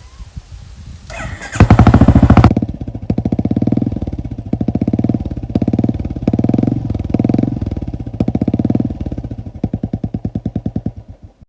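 Royal Enfield Classic 350 BS6 single-cylinder engine, breathing through an aftermarket K-Indori silencer, cranks and catches about a second and a half in. It idles with loud, separate exhaust thumps and takes several short throttle blips. Near the end it is switched off: the thumps slow and die away.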